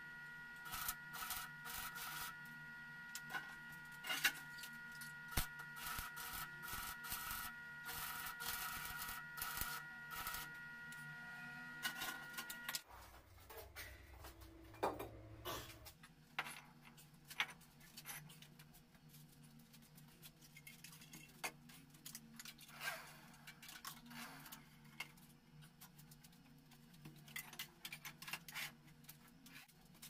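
Metalworking on a welded sheet-steel box: rapid, irregular tapping and scraping over a steady high whine for about the first half. After a sudden change, only scattered knocks and clatter remain.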